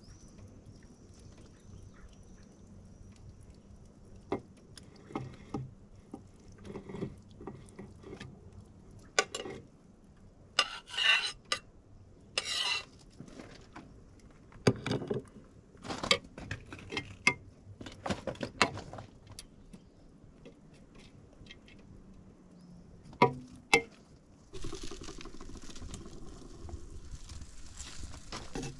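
Cookware and utensils being handled: scattered clinks and knocks, with a few short scraping sounds. A steady hiss starts near the end.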